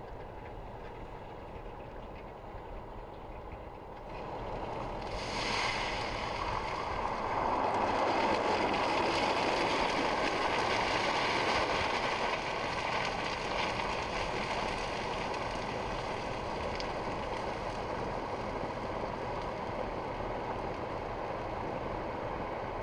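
Hot cooking oil in an overfilled propane turkey fryer erupting as a frozen turkey is lowered in: after about four quiet seconds a sudden burst of loud sizzling and hissing as the oil boils over the rim onto the burner and flares up, then steady, dense sizzling that eases slightly. It is the boil-over of a frozen turkey in an overfilled pot.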